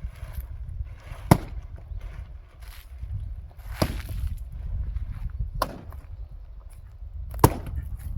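Axe splitting firewood: four sharp chops about two seconds apart.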